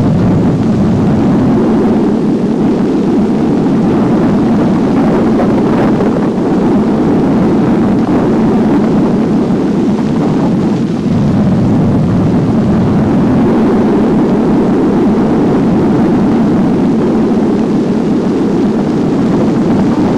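Loud, steady, low rumbling noise with no clear pitch, a dense roar like a large fire or a heavy engine drone.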